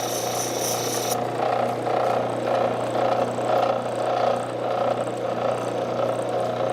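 Water-fed wet grinding wheel running with a steady motor hum while a small metal piece is held against it. The grinding swells and eases every second or so, with a brighter, higher hiss during the first second; the water keeps the piece cool against friction heat.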